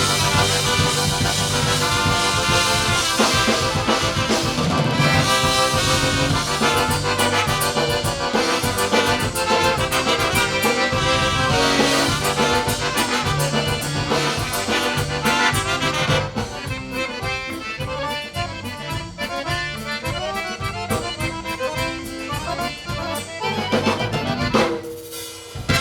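Live polka band playing an instrumental passage, with the accordion to the fore over a steady beat. The sound thins out about two-thirds of the way through and drops off briefly just before the end.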